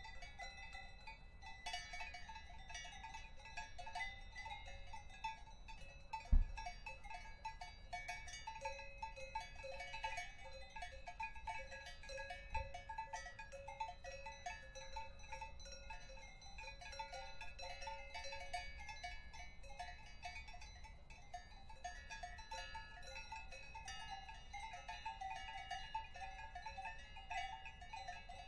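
Several cowbells of different pitches clanking irregularly and overlapping, without pause. A dull thump about six seconds in and a softer one near halfway.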